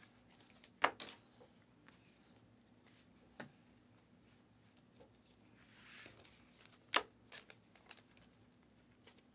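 Trading cards being flipped through by hand: a few scattered sharp clicks as card edges snap past each other, with a soft brief rustle of card stock about six seconds in.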